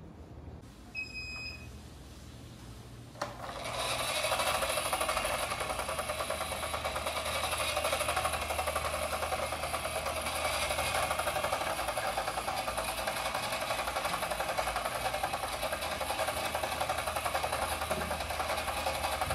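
Two short electronic beeps about a second in, then a click and a motorised treadmill belt starting up at about three seconds. The belt runs with a steady rubbing, whirring noise under a red plastic toy crane truck whose wheels spin on it.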